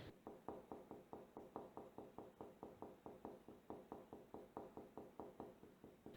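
Faint, rapid, evenly spaced ticking, about six light ticks a second, steady throughout.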